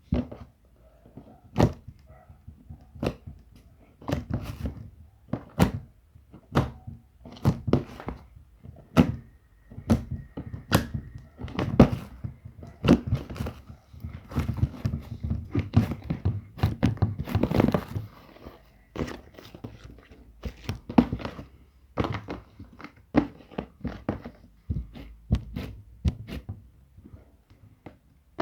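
Slime being squished and poked by hand: irregular sticky clicks, pops and soft thuds, coming in dense runs.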